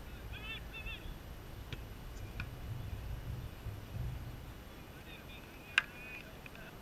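Outdoor amateur soccer game: faint distant shouts over a low rumble, with a few light knocks and one sharp smack a little before the end, the loudest sound.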